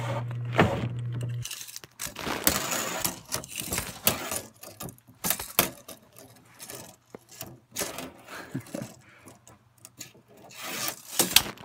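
Handling noise: irregular rubbing and scraping with many sharp clicks scattered through. A low steady hum stops about a second and a half in.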